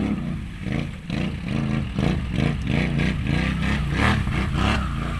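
Can-Am side-by-side engine revving up and down over and over, about two throttle pulses a second, with rough bursts of clatter from working through mud.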